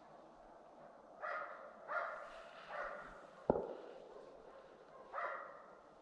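A hunting dog barking: three barks in quick succession, then a fourth near the end. About halfway through, a single sharp crack is louder than the barks.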